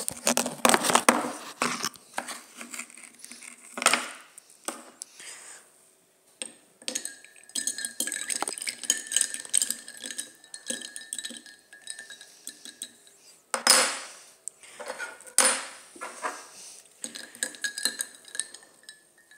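Ice crunching between teeth, a run of irregular sharp cracks and clinks of ice, loudest about a second in and again about two thirds of the way through.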